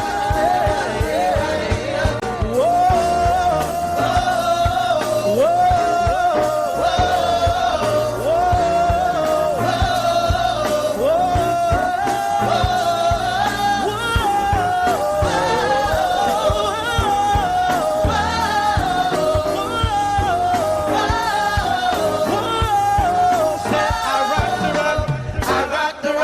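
Upbeat gospel-style song with a sung melody over a steady drum beat and bass.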